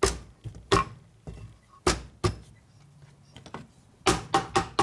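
Sharp knocks on the aluminium crankcase half of a Harley-Davidson WL 45 flathead as it is tapped down onto the other case half over the crankshaft. A few spaced knocks come first, then a quick run of about five near the end.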